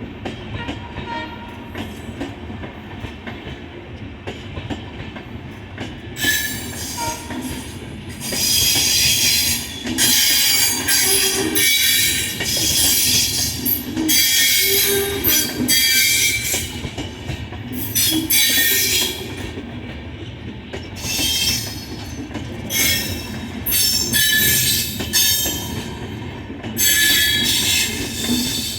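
Passenger train rolling slowly past with a steady low rumble, and from about six seconds in, repeated loud, high-pitched screeching from its wheels and brakes that comes and goes in waves.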